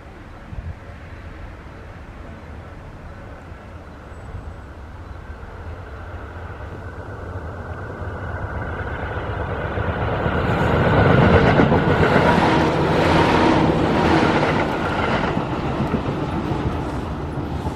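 Tobu 8000-series electric train approaching and passing close by, its running noise building to its loudest about two-thirds of the way through, with a quick rattle of wheels over rail joints, then fading.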